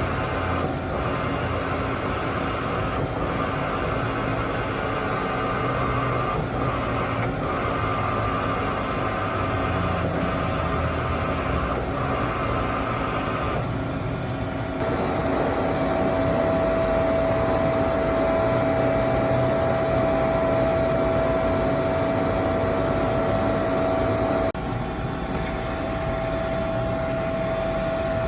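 Femco BMC-110R2 CNC horizontal boring mill running under power: a steady machine hum made of several steady tones, with a few faint clicks in the first half. About halfway through, a strong high steady whine joins in and continues to the end, dipping slightly in level near the end.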